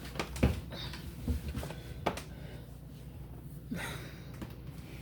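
Scattered light knocks and clicks of containers and items being handled around an open refrigerator, over a low steady hum.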